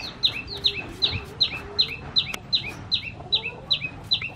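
Metal julienne peeler shredding a raw potato in quick, even strokes, about two and a half a second, each stroke a short scraping squeak that falls in pitch.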